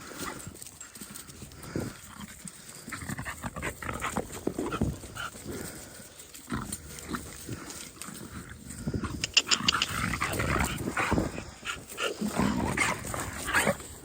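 Dogs let loose and playing, with scuffling and short vocal sounds. It gets busier and louder in the second half.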